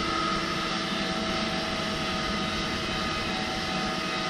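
Electric fan on a coal forge running steadily: an even rushing hum with a few faint steady tones.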